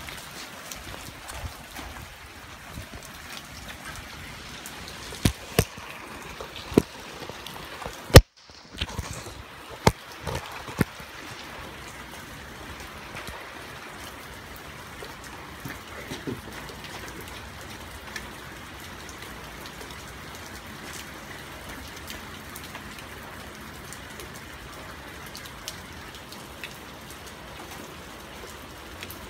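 Steady rain falling and pattering on surfaces. Several sharp knocks come in the first eleven seconds or so, the loudest about eight seconds in, cut off by a brief dropout.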